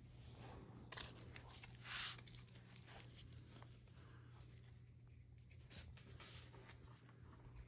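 Faint crinkling and rustling with a few sharp clicks, and a short hissy rustle about two seconds in.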